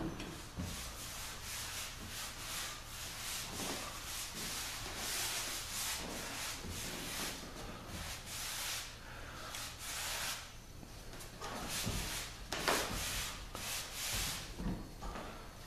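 Applicator dragged over a fine-sanded hardwood floor to spread water-based finish: repeated hissing rubbing strokes, with a few short knocks.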